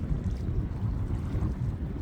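Wind buffeting a phone's microphone: a steady, fluttering low rumble.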